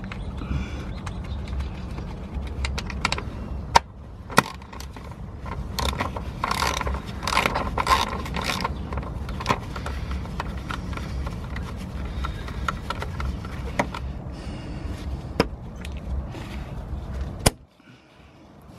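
Ratchet wrench clicking in short runs as the bolt on the fuel filter's mounting bracket is tightened, with a few sharp metallic clicks and knocks. A steady low hum runs underneath.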